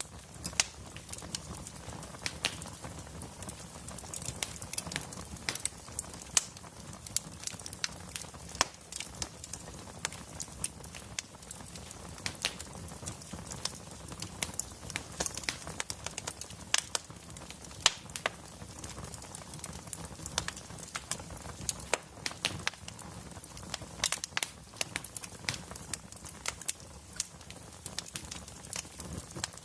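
Wood fire in a fireplace crackling: irregular sharp pops and snaps, several a second, over a steady low rumble of burning logs.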